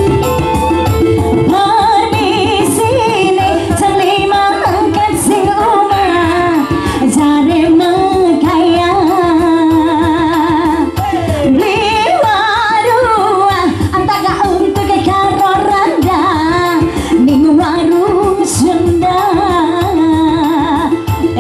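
Live band music: a woman singing a wavering melody over keyboard and drums.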